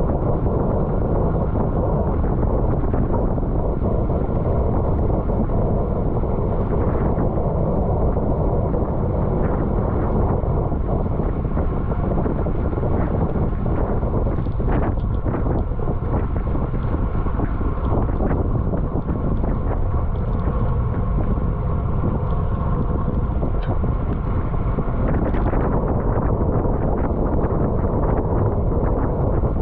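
Steady wind rush over the microphone of a camera on a bicycle moving at race speed, with a few brief clicks.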